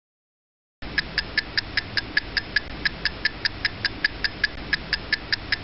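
Clock-ticking sound effect: fast, even ticks, about five a second, starting about a second in after a moment of dead silence. It marks time passing while the chicken marinates.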